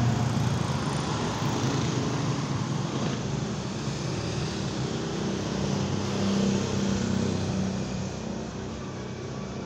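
Street traffic: vehicle engines running and passing, with one passing engine hum rising and loudest about six and a half seconds in, then fading.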